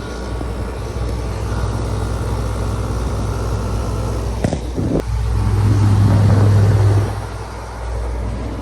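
LG 6000 BTU window air conditioner running with its fan on speed 3, a steady low hum over fan noise. Two sharp knocks come about halfway through, and the low hum swells louder for a second or so after them.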